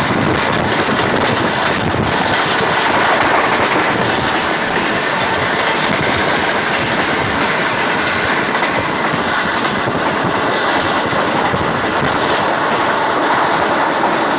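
Passenger train running at speed, heard from aboard the moving coach: a steady, loud run of wheel-on-rail noise.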